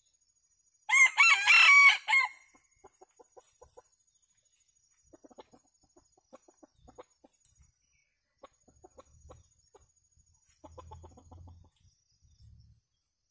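A junglefowl rooster crows once, loud and short, about a second in, followed by soft, short, repeated clucking from the foraging birds.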